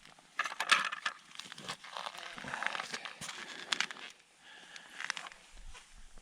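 Irregular crackling and crinkling handling noise with several sharp clicks, made while a fish on the line is being played up through a hole in the ice.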